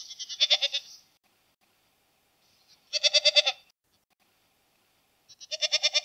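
Goat bleating three times, about two and a half seconds apart. Each call is a short, wavering, fluttering bleat lasting under a second.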